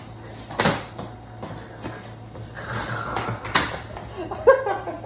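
Two sharp smacks of blows landing on a person, about half a second in and again past three and a half seconds, with rustling of bedding in between and a short voice sound near the end.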